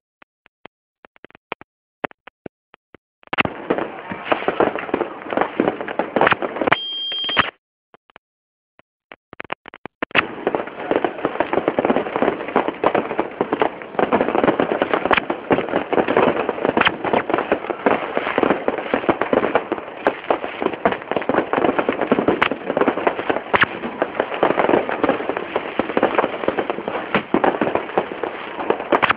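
Fireworks and firecrackers going off: scattered sharp pops with near-silent gaps for the first ten seconds, then a dense, continuous crackle of many rapid bangs. A short high steady tone sounds briefly about seven seconds in.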